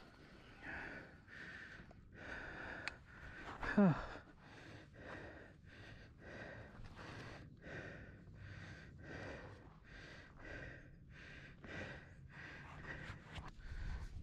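A mountain biker breathing hard in quick, even breaths after a fast descent, winded from the ride. About four seconds in there is one short, louder sigh that drops in pitch.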